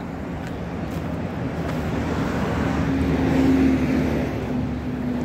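A motor vehicle driving past, its engine hum swelling to a peak about three and a half seconds in and then easing off.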